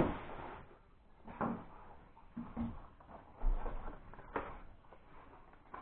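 Cardboard box being handled and its lid lifted off: a sharp knock at the start, then several softer knocks and rustles of cardboard and packaging.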